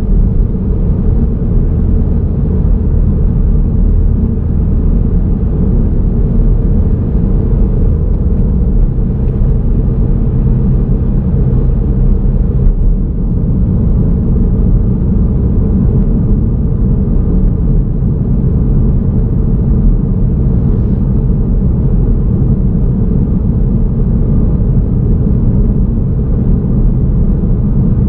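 Steady low rumble of a car driving along a road, mostly road and engine noise, as heard by a camera mounted on the car.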